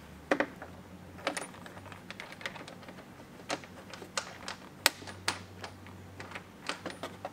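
A scattered series of light clicks and taps, at uneven intervals, as a mud flap and its mounting hardware are handled and fitted by hand against a car's front fender.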